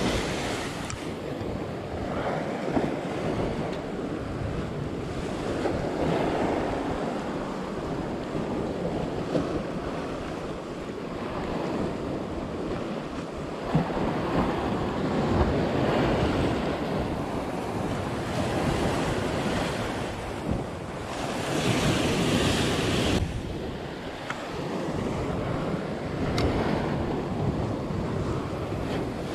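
Sea waves surging and breaking against a rocky shoreline, swelling louder every several seconds, with wind buffeting the microphone.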